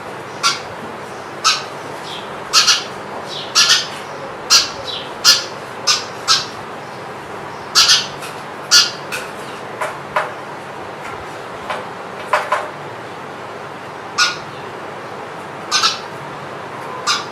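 Canary giving short, sharp chirps, singly or in quick pairs, every second or so rather than a continuous song, over a steady background hiss.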